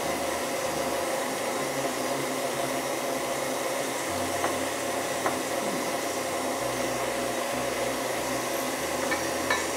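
Electric mixer running steadily, beating egg yolks and caster sugar until lightly fluffy, with a few light clicks.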